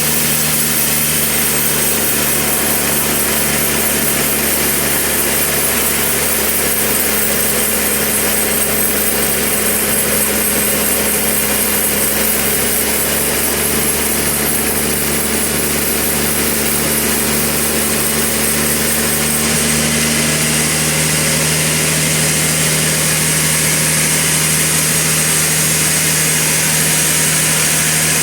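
Sawmill machinery running steadily: an even machine hum with saw noise over it.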